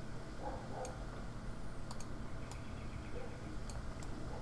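A few sparse, light computer-mouse clicks over a steady low electrical hum.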